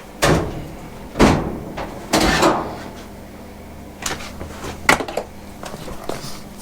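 Knocks and clunks of hard objects being handled, about five over six seconds. This is the Milwaukee M18 shop vac and its parts being picked up and set down just before it is switched on.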